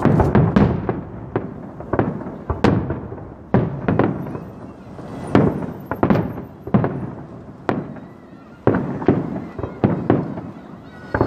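Aerial firework shells bursting in a fast series of loud bangs, each one fading away after the burst, with a short lull about eight seconds in.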